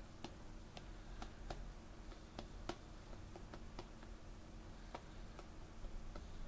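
Faint, irregular light clicks, about a dozen, over a low background hum.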